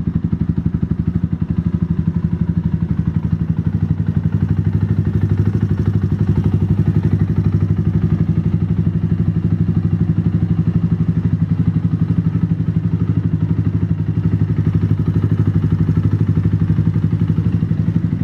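Mutt Mongrel 125's single-cylinder four-stroke engine idling steadily, an even rapid pulsing with no revs.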